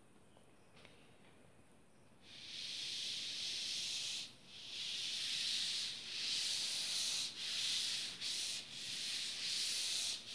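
Blackboard duster wiping chalk writing off a blackboard: after about two seconds of near silence, a series of long rubbing strokes with short breaks between them.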